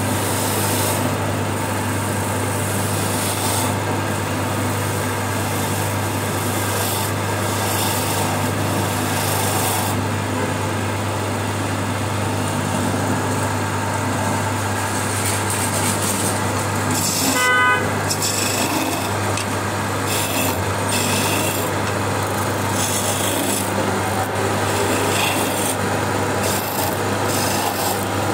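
Electric wood lathe running with a steady motor hum while hand tools scrape and cut the spinning wooden spindle, a continuous rasping. About 17 seconds in, a brief horn-like beep sounds over it.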